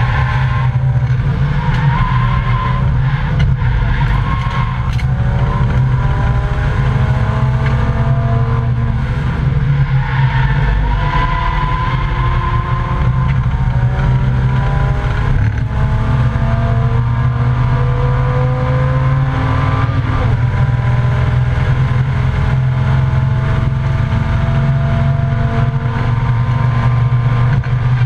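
Volvo 855 race car's five-cylinder engine at racing speed, heard from inside the stripped cockpit over a heavy, steady cabin rumble. The engine note climbs in pitch again and again as the car accelerates out of corners and down the straights.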